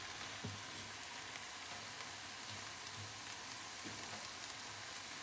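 Soft, steady sizzle of diced vegetables and baby spinach cooking in a frying pan, with a couple of faint taps of a silicone spatula in the pan.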